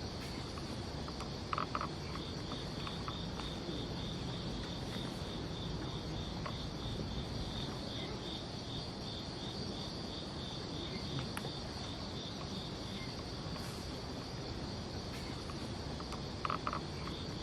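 Night insects such as crickets chirring steadily, with a second insect call pulsing alongside through much of it. Two short, sharper sounds, one near the start and one near the end, stand out briefly above them.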